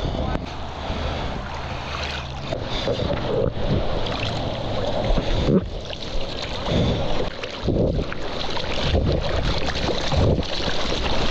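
Water splashing and sloshing around a camera held just above the surface while a surfer paddles a surfboard, with surges from the strokes about once a second in the second half, and wind on the microphone.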